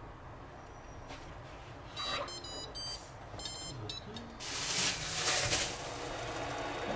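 Short electronic beeps from a kitchen appliance's controls, in two groups about two and three and a half seconds in, followed by about a second of loud hissing.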